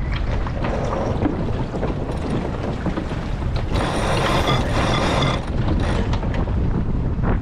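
Wind buffeting the microphone and water rushing along a sailboat's hull as it sails, with a louder hiss of spray lasting about a second and a half near the middle, and scattered small knocks and clicks from the boat.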